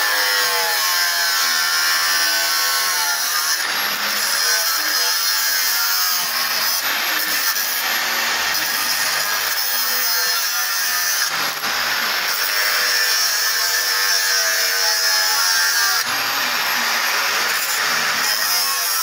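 Stick (arc) welding on a steel wheel: the electrode arc gives a steady crackling hiss.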